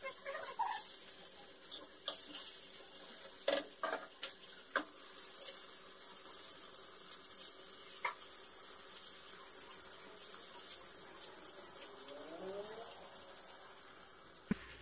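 Chicken breasts frying in a non-stick pan, sizzling steadily, with a few sharp clicks of pans or utensils along the way.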